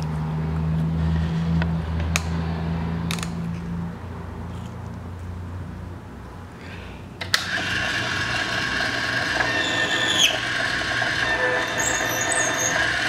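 Electric RCBS case prep station switched on with a click about seven seconds in, its motor then running steadily with a whine; a short falling squeal comes about three seconds later. Before that, a low hum fades out and there are a few clicks.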